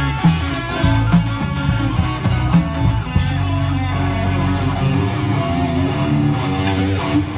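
Live rock band of electric guitars and drums playing to a steady beat, then a cymbal crash about three seconds in. The drums stop and a held chord rings out to close the song.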